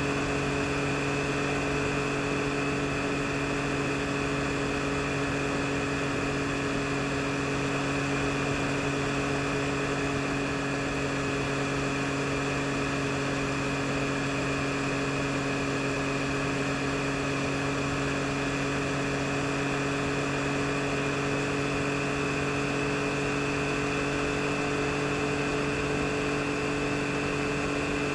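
2022 Yamaha MT-09 SP's inline three-cylinder engine running at a steady, unchanging pitch, over a steady hiss.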